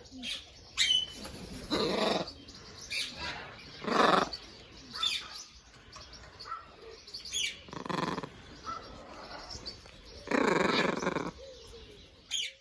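Large parrots squawking: a few harsh, loud calls a couple of seconds apart, the longest near the end, with short chirps and whistles between.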